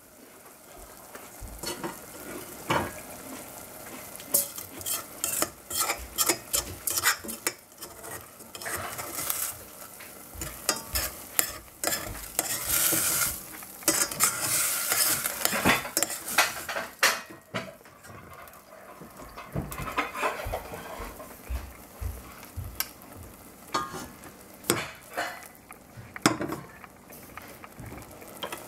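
A metal spoon stirs and scrapes large-grain (pearl) couscous in a stainless steel saucepan, clicking against the pan, with a sizzle as the last of the cooking water cooks off. The sizzle is strongest about halfway through.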